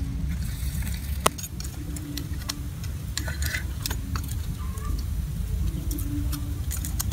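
Metal tongs clicking and clinking against a wire grill rack and grilled crabs as the crabs are lifted off, in scattered irregular clicks with one sharp loud click about a second in, over a steady low rumble.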